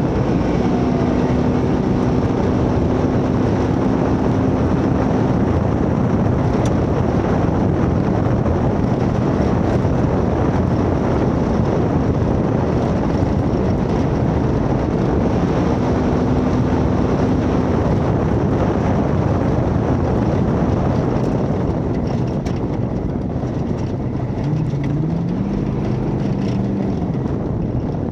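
1972 Ford Bronco race truck running hard off-road: steady engine noise under heavy wind and terrain rumble, with the engine note climbing about three-quarters of the way through.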